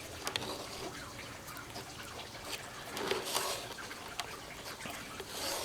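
Body filler being mixed with its hardener: soft, wet scraping with scattered small clicks, a little louder about three seconds in.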